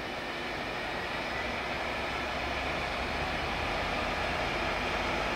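Freightliner Class 66 diesel locomotive, a two-stroke V12, running as it passes hauling wagons, with rumble from the wheels on the rails. The sound grows gradually louder as the train draws nearer.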